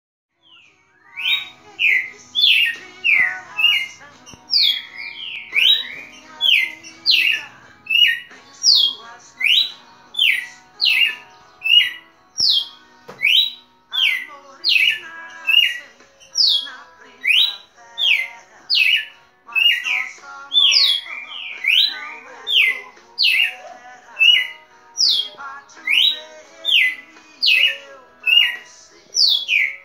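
Red-cowled cardinal singing: a steady, unbroken run of short, loud whistled notes, most of them sliding upward, about two a second.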